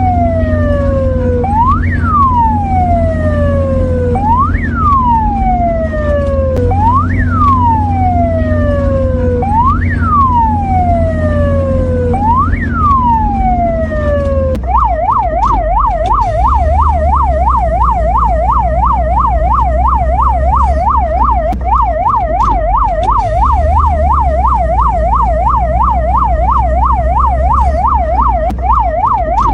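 Mexican ambulance siren on a wail: each cycle rises quickly and falls slowly, about every two and a half seconds. About halfway through it switches to a fast yelp, warbling up and down a couple of times a second. A low steady hum runs underneath.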